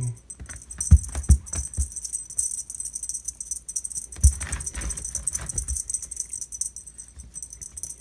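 A wand cat toy jingling and rattling as a cat grabs and bats at it. A few soft thumps come from the cat on the carpeted stairs, about a second in and again after four seconds.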